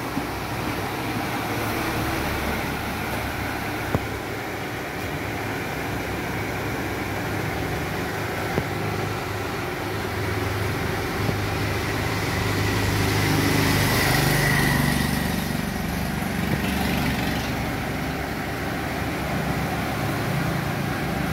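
Steady background hum of road traffic and vehicle engines, swelling louder for a couple of seconds just past the middle.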